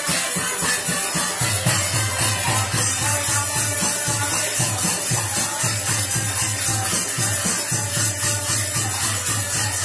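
Fiji Indian Faag (Holi) folk music: small hand cymbals clash in a busy, steady rhythm, with a harmonium. A dholak drum comes in with a regular low beat about a second and a half in.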